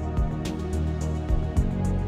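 Background music: an instrumental soundtrack with sustained synth and string notes over a steady beat.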